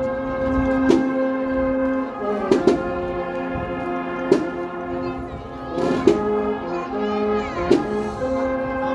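Processional brass-and-drum band (agrupación musical) playing a march: held brass chords that shift every couple of seconds, with sharp drum hits roughly every one to two seconds.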